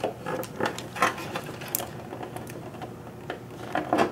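Light plastic clicks and taps as a wiring connector holder and its connectors are handled and pressed back into place beside a motorcycle's ECU, irregular and busiest near the end.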